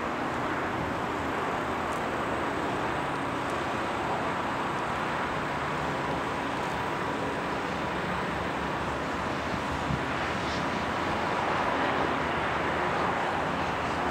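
Steady outdoor background noise, a wash of distant road traffic, with a faint steady high hum.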